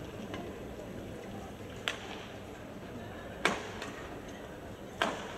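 Three sharp hits about a second and a half apart, badminton rackets striking a shuttlecock, ringing briefly in a large hall over a low background murmur of voices.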